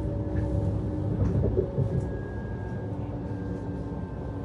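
Cabin running noise of a Lastochka electric train: a continuous low rumble with a few faint steady whines that drift slightly lower in pitch, and a brief louder patch of clatter about a second and a half in.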